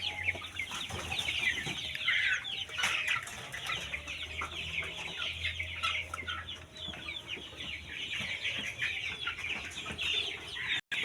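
A flock of chickens clucking, with many short calls overlapping throughout.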